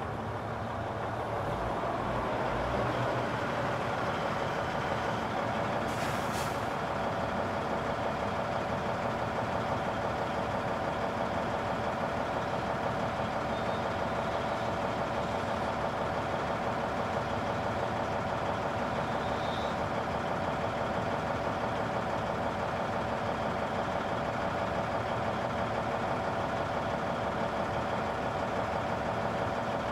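Heavy construction machinery's engine running steadily, recorded from about 50 feet away, growing a little louder over the first few seconds. A short hiss cuts through about six seconds in.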